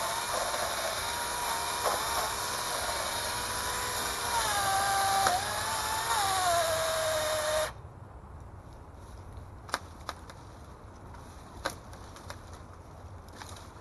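Dingmo 4-inch 21 V battery mini chainsaw running with a high whine whose pitch drops as the chain loads up cutting a tree branch, then cuts off suddenly about eight seconds in. A few light knocks follow.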